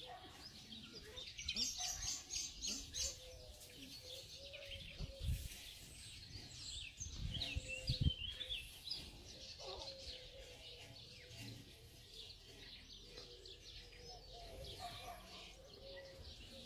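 Small birds chirping in quick, high calls, busiest in the first half, with a low thump about five seconds in and a louder one about eight seconds in.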